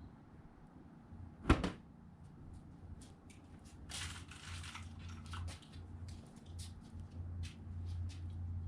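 A sharp knock about a second and a half in, then scattered clicks and a short burst of rustling over a low hum.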